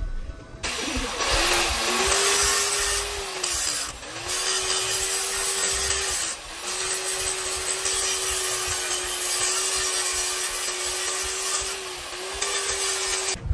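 Angle grinder running and grinding a metal sprocket, a continuous harsh grinding hiss over a steady motor whine. The motor note sags three times as the disc is pressed into the metal, then recovers. It starts about a second in and cuts off suddenly near the end.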